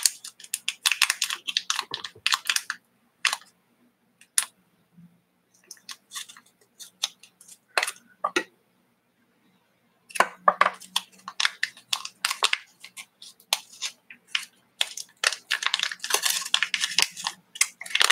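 Crinkling and tearing of small foil sachets from a slime kit as they are handled and opened, in bursts of sharp crackles with a quiet spell of several seconds in the middle.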